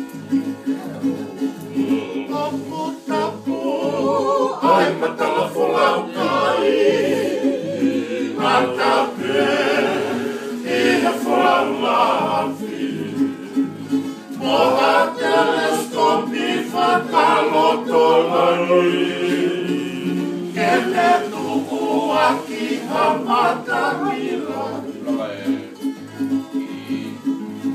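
Men singing a Tongan song together to strummed acoustic guitars, with a steady, even strumming rhythm under the voices.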